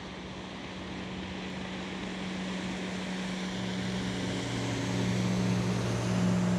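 Motorboat engine running steadily as the boat speeds past, getting louder through the clip, with a lower engine tone joining about halfway.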